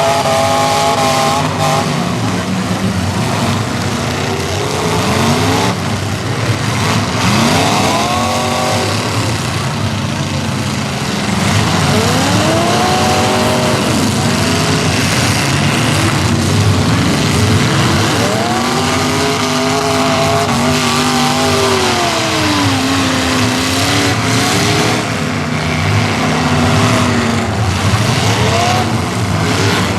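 Demolition derby cars with loud open exhausts, several engines revving up and dropping back again and again over a steady din of other engines running.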